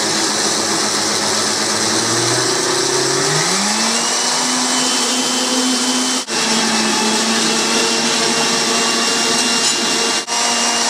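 Countertop blender running, blending a smoothie. Its motor pitch climbs about three seconds in as it picks up speed, then holds steady. The sound breaks off for an instant twice, near the middle and near the end.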